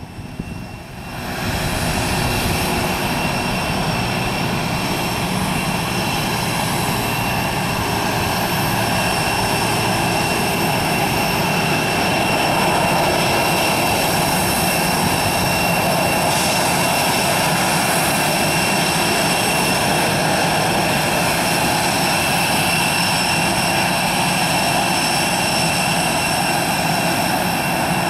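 Allegiant Airbus A319's twin jet engines spooling up about a second in, then running at high thrust: a loud, steady jet noise with a steady high whine, the jet blast blowing toward the microphone.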